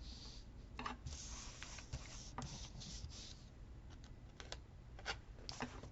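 Stickers and paper being handled: soft paper rustling, strongest between about one and three and a half seconds in, with scattered light taps and clicks.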